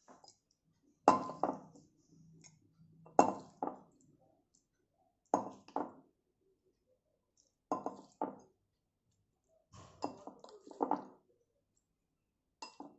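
A metal spoon clinking against a glass mixing bowl and a small serving bowl as chopped raw-mango pickle is scooped and served. The clinks come mostly in pairs, about every two seconds, the loudest about a second in and again about three seconds in.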